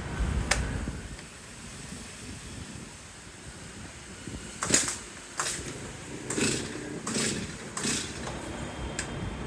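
Stihl MS 250 chainsaw being pull-started: five quick yanks of the recoil starter cord about two-thirds of a second apart, the engine not catching. A sharp click comes about half a second in.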